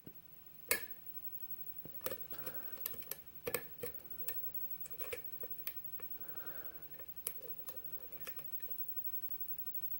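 Irregular small metallic clicks and light scrapes of a hook pick and tension wrench working the pins of a Schlage pin-tumbler lock during single-pin picking.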